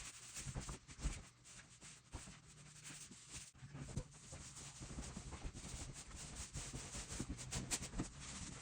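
Faint rubbing and scuffing of a stain roller being worked across a sanded hardwood floor, with small scattered knocks.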